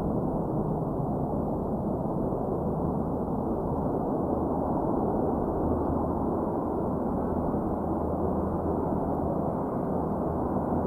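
Four-engine turboprop drone of a C-130 Hercules on its takeoff roll at takeoff power: a steady, low propeller hum with a deep, even rumble.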